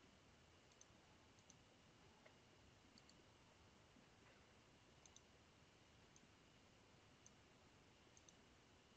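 Near silence, broken by faint, scattered clicks of a computer mouse and keyboard, a few of them in quick pairs.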